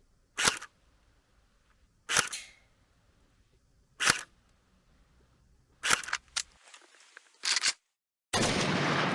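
Battery-powered ASG Arsenal SLR105 AK-74 airsoft replica firing single 0.12 g 6 mm BBs, a sharp short crack about every two seconds, four times, followed by a few fainter clicks. Near the end a loud rushing noise sets in and fades.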